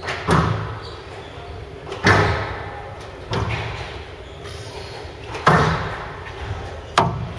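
Squash rally: the ball is struck by rackets and smacks into the court walls, five sharp cracks about a second and a half apart, each echoing in a large hall.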